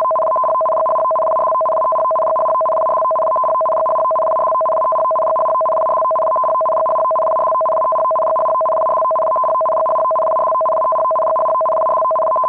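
Loud, steady two-note electronic alert tone of a mock Emergency Alert System broadcast, held without change and cutting off abruptly at the end.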